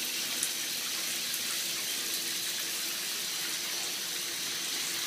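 Water from a tap or shower running steadily into a bathtub, an even hiss.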